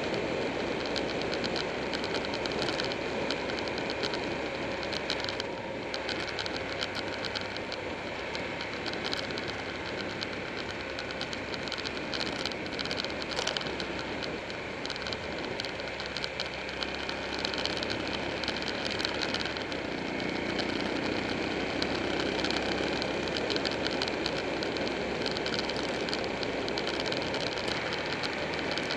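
Buell 1125R's V-twin engine running steadily under way, mixed with heavy wind rush over the camera's microphone.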